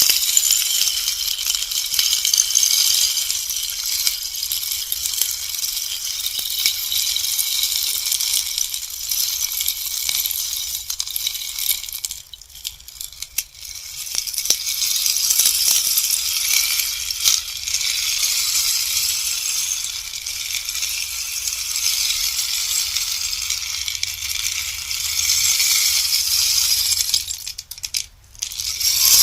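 Bamboo rainstick: a continuous cascade of small pellets pattering down inside the tube, a fine, high rain-like rattle. The cascade dies down briefly twice, about twelve seconds in and shortly before the end, then picks up again.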